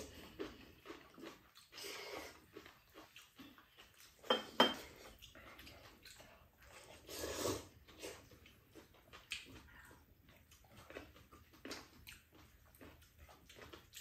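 Two people eating ramen noodles with chopsticks: noodles slurped in short pulls, with chewing in between. A few seconds in come two sharp clicks close together, chopsticks or a utensil knocking against a bowl.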